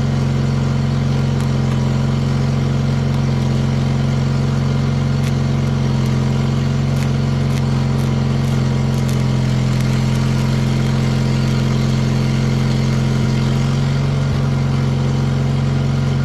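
Onan engine of an old Miller engine-driven welder-generator running steadily at a constant governed speed, a loud even drone with no change in pitch.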